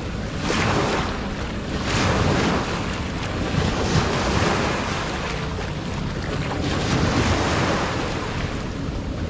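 Small waves washing in and breaking over shoreline rocks, swelling and falling back every two seconds or so, over a steady rumble of wind on the microphone.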